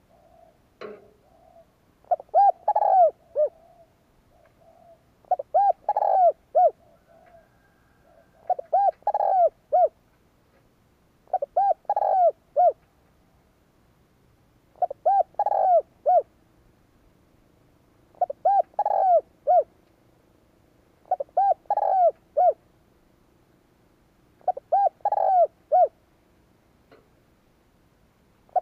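Spotted dove (cu gáy) cooing its song, a phrase of three or four coos about every three seconds, eight phrases in all. A short click sounds about a second in.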